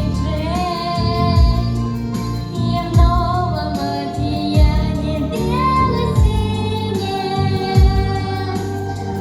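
A girl singing a Russian pop song, holding notes with vibrato, over a backing track with a low drum beat about every one and a half seconds.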